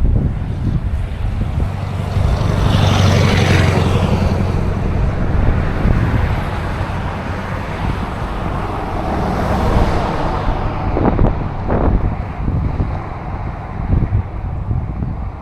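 Road vehicles passing close by, one swelling and falling away about three seconds in and another about ten seconds in, over a steady rumble of wind on the microphone.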